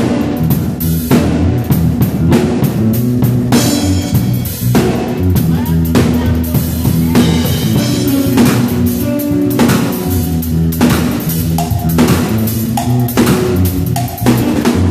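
Loud music with a full drum kit, bass drum, snare and rimshots, over held low bass notes, played at a sound check.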